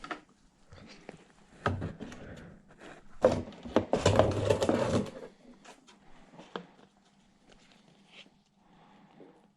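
Hands handling a sticker sheet and a plastic mudguard: small clicks and taps, with a louder crinkling rustle for about two seconds near the middle.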